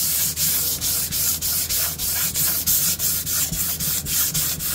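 Sandpaper on a wooden sanding block rubbed quickly back and forth along the edge of a guitar neck's fretboard, about four strokes a second. It is knocking down the lip left by newly glued-on binding.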